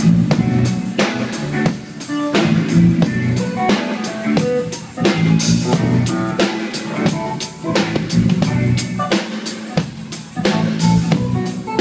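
Drum kit played as a full beat during a sound check, strikes coming several times a second, with guitar playing along.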